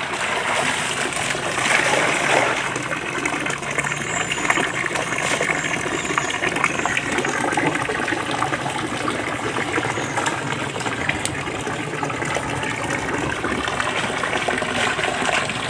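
Water running and gushing steadily, a constant rush with no break.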